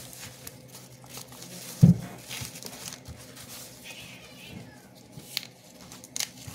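A short, loud animal cry about two seconds in, then corn husks rustling and crackling as they are pulled back from the ear.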